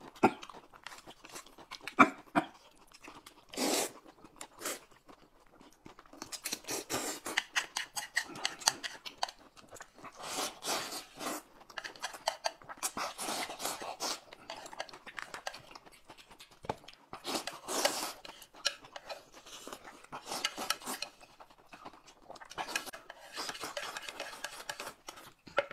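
Close-miked eating sounds: noodles being slurped and chewed, in short, irregular spurts with brief pauses between.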